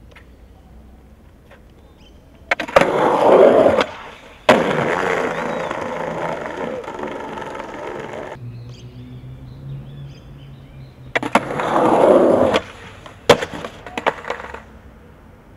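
Skateboard wheels rolling over brick paving in two loud runs, each begun with a sharp click, with a hard smack of the board on the ground about four and a half seconds in. Near the end the board clatters in several sharp knocks across the paving after a fall.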